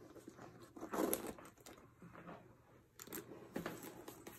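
A few soft rustles and scuffs of a Michael Kors Rhea Slim leather backpack being handled and turned over on a tabletop.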